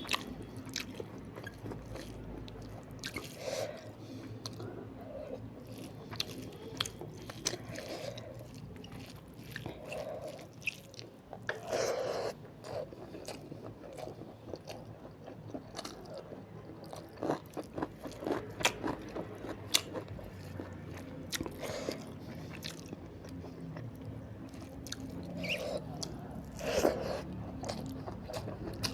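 Close-miked eating of a rice and curry meal: wet chewing with many sharp, irregular mouth clicks and occasional crunchy bites.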